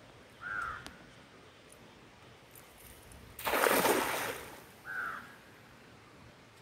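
A weighted cast net slaps down onto still river water with a splashing rush, about three and a half seconds in, lasting about a second. A bird gives a short call twice, once near the start and once just after the splash.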